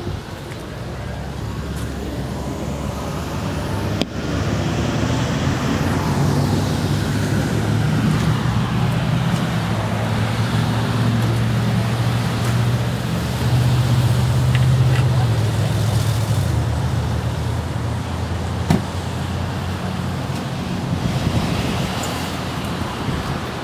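A car engine idling with a steady low rumble that swells slightly around the middle, broken by two brief sharp clicks.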